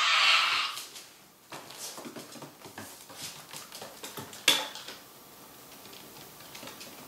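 A man's hoarse, drawn-out fake dying cry cuts off about a second in. After it, a toy poodle's claws tick and patter on a wooden floor as it walks around sniffing, with one sharp click about four and a half seconds in.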